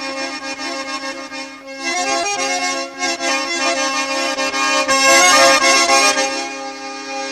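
Background music: an accordion-like tune played over a steady held low note.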